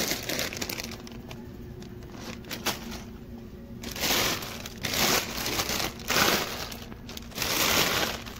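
Plastic Lego polybags crinkling as a hand rummages through a bin of them. It comes in rough bursts: one at the start, then several close together in the second half.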